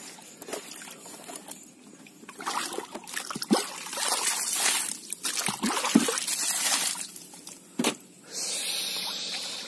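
Water trickling and splashing in a boat's fish hold full of freshly caught mullet, with a few sharp knocks.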